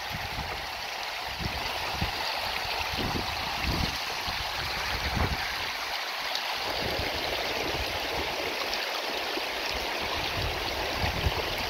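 A shallow, rocky creek running over stones in a steady, rushing babble, with occasional low rumbles underneath.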